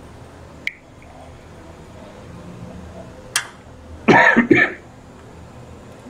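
A person coughs twice in quick succession about four seconds in, the loudest sound here. Two sharp clicks come earlier, one under a second in and one a little after three seconds.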